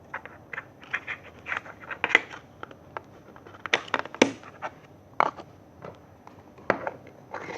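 Slime being handled and squeezed, giving irregular short clicks and pops in little clusters, the loudest snap a little past the middle.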